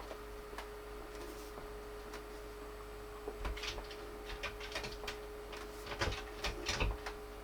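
Optoma UHZ65 projector humming a steady single tone, which the owner thinks may come from its cooling fan. Scattered light clicks and rustles join in from about three seconds in.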